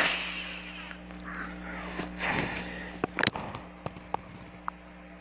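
A person breathing close to the microphone: a sharp breath in at the start and a softer one about two seconds in, with a few small mouth clicks, over a faint steady electrical hum.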